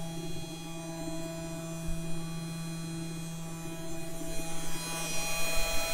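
Genmitsu 4040 Reno CNC router's spindle motor running at a steady speed, an even hum with several higher steady tones above it.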